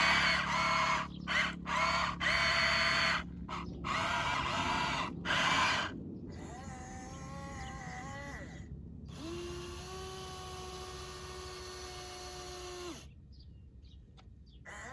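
Small electric motors and gearboxes of a radio-controlled toy construction machine whining in a string of short stop-start bursts. This is followed by a longer wavering whine, then a steady lower whine that cuts off near the end.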